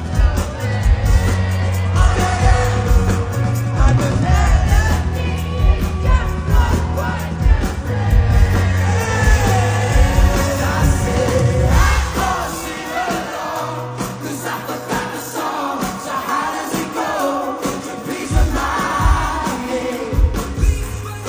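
Live pop band with a male lead singer performing at full volume over a steady drum and bass beat. About halfway through the heavy bass and drums drop away, leaving the vocals over lighter backing, and the beat builds back near the end.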